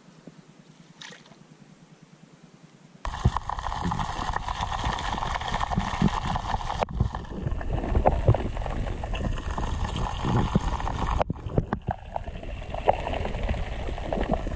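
Faint background for about three seconds, then a sudden loud churning, gurgling water noise heard through a submerged camera, with scattered sharp knocks.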